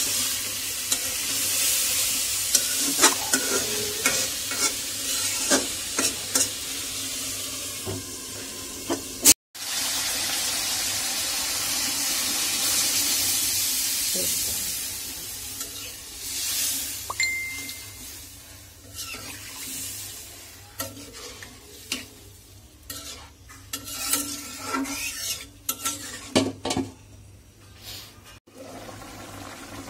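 A spatula stirring and scraping papaya frying in a karahi, with sharp clicks against the pan over the sizzle. After a cut about a third of the way in, water is poured into the pan with a steady rush, then the sound falls to scattered clinks and knocks as the lid goes on.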